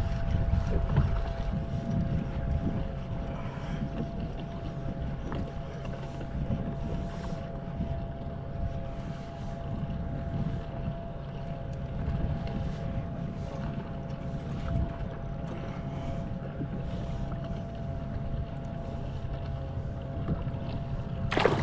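Wind rumbling on the microphone and water moving around a kayak at sea, with a faint steady hum underneath. A sharp click near the end.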